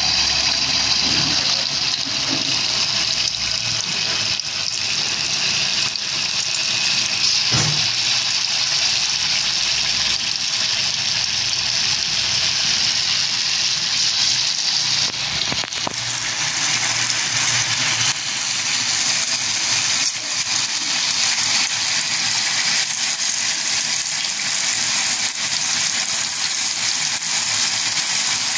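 Hot oil sizzling steadily in a wok as flour-coated tofu balls deep-fry.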